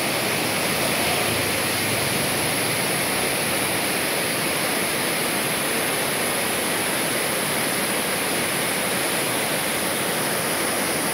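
Waterfall cascading down tiers of rock ledges: a steady, unbroken rush of falling water.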